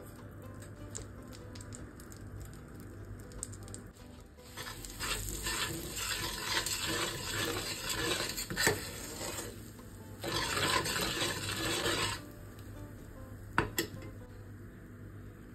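Metal spoon stirring and scraping a spice masala in a stainless steel frying pan while the oil sizzles, in two spells of a few seconds each. A single sharp clink comes near the end.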